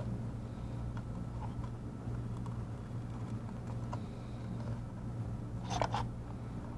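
Small tools on a circuit board: faint scattered ticks and a short cluster of sharper clicks near the end, while solder work is done on a tablet's charging port. A steady low hum runs under it.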